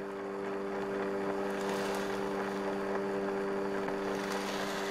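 Fax machine receiving a page: a steady motor hum with hiss.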